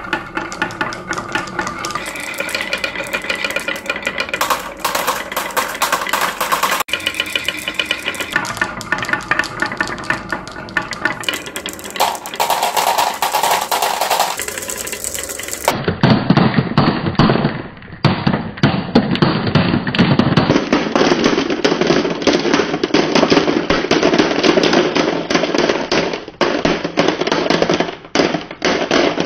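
Many glass marbles rolling and clattering down wooden wave-cut slope tracks: a dense, rapid, irregular clicking of marble on wood and marble on marble. About halfway through the clatter turns duller and heavier.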